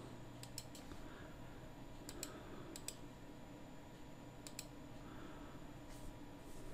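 Faint computer mouse clicks: several sharp ticks, some in quick pairs, spread through the stretch, over a low steady hum.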